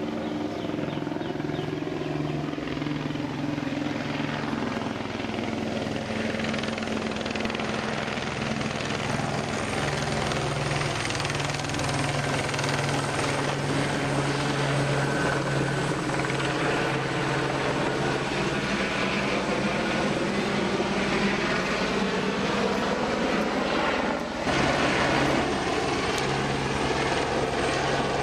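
Helicopter flying overhead, an AS350-type single-turbine machine: a steady drone of turbine and rotor with a constant low hum, growing a little louder over the first half, with a brief drop about 24 seconds in.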